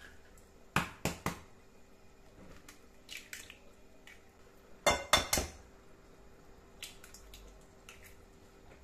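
Two eggs cracked on the rim of a mixing bowl: a quick cluster of sharp taps about a second in, then a louder cluster around five seconds in, with a few faint ticks between them.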